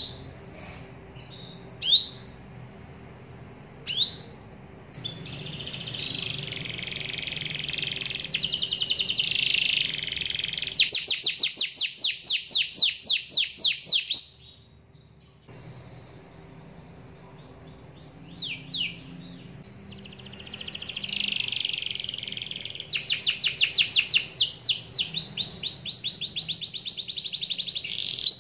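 Canary singing: a few single sharp call notes, then long song phrases that end in fast rolling trills. It breaks off briefly midway, then sings again with more rapid trills.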